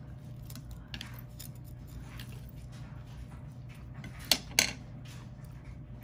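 Chopsticks clicking and tapping against a ceramic plate while picking at food, with two sharp clicks about four and a half seconds in. A steady low hum runs underneath.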